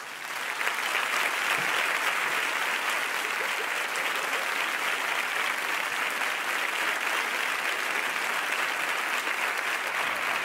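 Studio audience applauding, swelling up within the first second and then holding steady.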